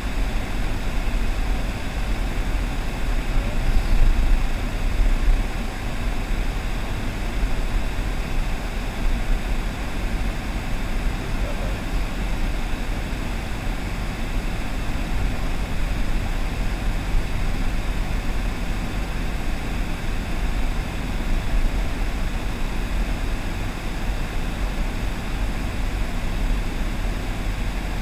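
Steady road and engine noise of a moving car heard from inside the cabin: a low rumble with a haze of tyre noise, briefly louder about four seconds in.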